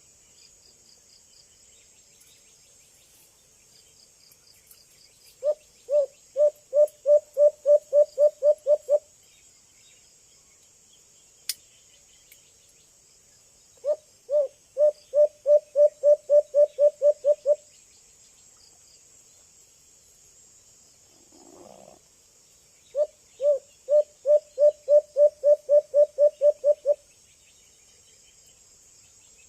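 White-eared brown dove calling: three series of low, even hoots, each of about a dozen notes at roughly three a second, starting with a couple of spaced notes and repeating about every nine seconds. A steady high insect drone runs underneath.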